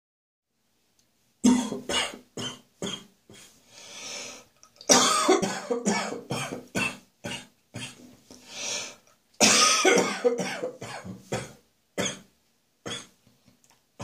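Hangover morning coughing fit after a night of beer: bouts of rapid coughs starting about a second and a half in, broken twice by a long drawn-in breath, then thinning to single coughs near the end.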